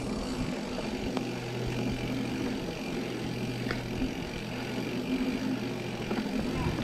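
Orbea Occam AM mountain bike rolling fast along packed dirt singletrack: tyre and drivetrain noise with a steady low hum, a few sharp clicks and rattles from the bike, and wind rushing on the unshielded action-camera microphone.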